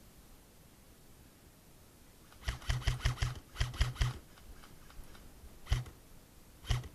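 Airsoft gun firing single shots in quick succession: a string of five, then three more, about six a second, starting about two and a half seconds in, then two more single shots near the end. Each shot is a short sharp crack with a low thump.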